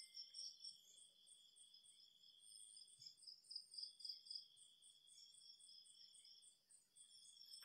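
Faint chorus of night insects, crickets among them: a steady high trill that breaks off twice, with a pulsing chirp about three times a second over it.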